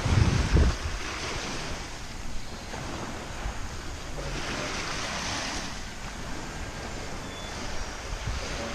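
Wind gusting on the microphone: a rushing noise with a low buffeting rumble at the start, swelling again about halfway through.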